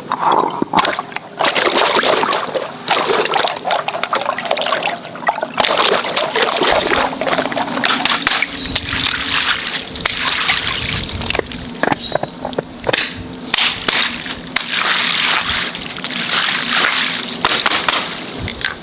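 Water splashing and sloshing, dense with short sharp splatters.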